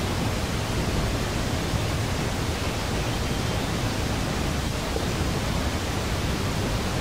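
A steady, even hiss with a low rumble under it, unchanging throughout, with no distinct sounds in it.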